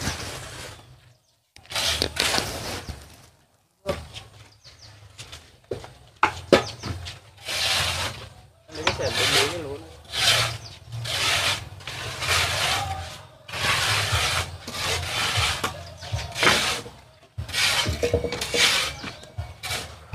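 Repeated rough scraping strokes, roughly one a second and uneven in length: a shovel working wet mortar on a hard surface.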